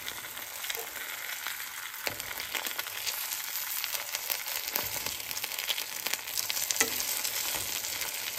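Slices of luncheon loaf sizzling in hot grease in a nonstick frying pan, a steady hiss. A metal fork taps and scrapes against the pan a few times as the slices are flipped.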